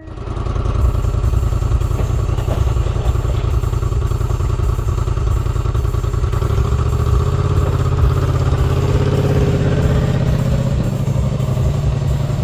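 Polaris Sportsman 850 ATV's parallel-twin engine running, with a steady rapid pulse and its pitch shifting a little in the second half.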